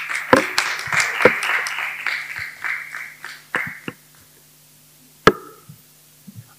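Small audience applauding for about four seconds, the clapping thinning out and fading. A single sharp knock follows about a second later.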